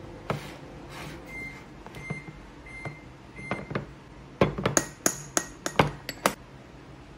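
Four short electronic beeps about 0.7 s apart, like an appliance's button beeps, then a quick run of clinks and knocks of dishes being handled.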